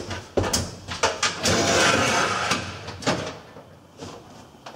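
Handling noise from an aluminium stepladder and test equipment: a few knocks and clicks, then about a second of rustling, then a couple of light ticks.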